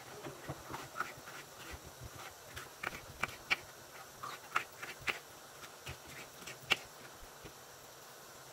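Kitchen knife dicing bell peppers on a wooden cutting board: irregular sharp taps of the blade hitting the board, about two a second.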